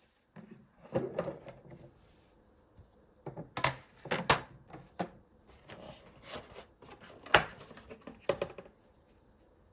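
Irregular clicks and knocks of objects being handled and set down, the loudest knock about three-quarters of the way through.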